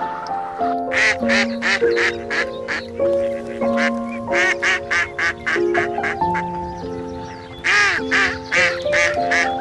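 Runs of short animal calls, several a second, in three bursts over background music with a steady stepping melody.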